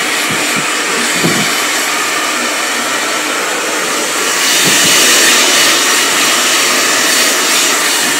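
Handheld hair dryer blowing air steadily, a little louder from about halfway through.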